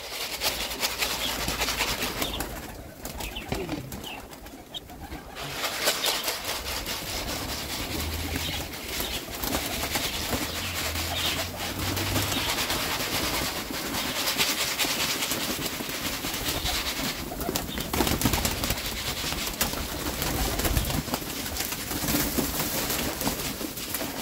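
A flock of white homing pigeons cooing and flapping their wings as they crowd down onto scattered grain, with a busy rustle of wingbeats and small clicks.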